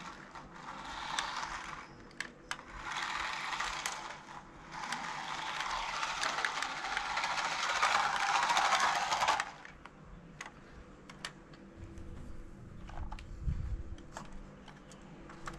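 Small toy RC car (Sulong Toys Strong Power Metal Speed Car) running, its motor and gears whirring in three spurts as it is driven over brick paving, cutting off about nine seconds in. Light clicks and taps follow as the car is handled.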